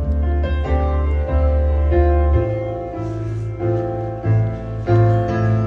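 Piano music with deep sustained bass notes, played back through a hi-fi demo system: Audio Physic Classic 8 floor-standing loudspeakers driven by a Primare I25 Prisma integrated amplifier. The bass line steps to a new note a little under halfway through.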